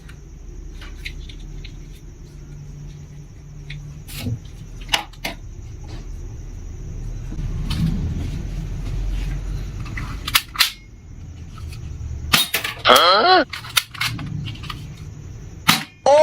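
Toy guns firing: sharp shots scattered irregularly, some single and some in quick clusters. A wavering high squeal comes in about two-thirds of the way through.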